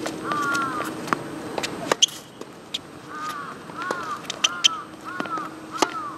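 Crows cawing, one call near the start and then a run of about five caws in the second half. Sharp knocks of a tennis ball off rackets and the court cut through, the loudest about two seconds in and again past the middle.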